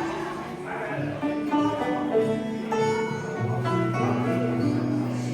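Background music with sustained melodic notes, coming in right at the start.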